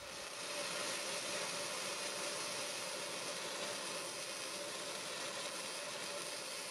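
Flux-core wire welding arc from a Hynade MIG 140D hissing steadily as a bead is run on 14 gauge steel at 90 amps, a setting that is too hot and burns through the metal.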